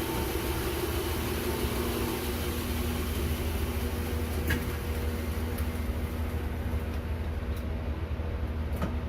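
A 2x72 belt grinder, a modified Grizzly slowed by a separately mounted motor, running steadily: a steady hum with a hiss from the belt. There are faint clicks about halfway through and again near the end.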